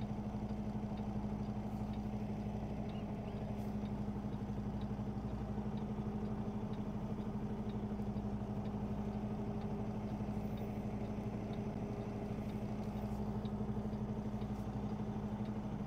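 Kenworth T680 semi truck's diesel engine idling steadily while the tractor-trailer reverses slowly into a dock, an even drone with a constant low hum.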